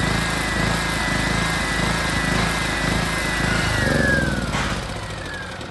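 Bajaj-M 5000 PS 5 kW portable petrol generator running steadily with a high whine over the engine note, then switched off about four seconds in: the whine falls in pitch and the engine runs down.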